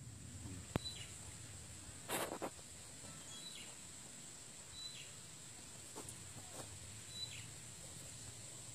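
Faint outdoor ambience: a steady high-pitched insect drone, with short high chirps repeating every second or so. There is a sharp click just under a second in and a brief rustle about two seconds in.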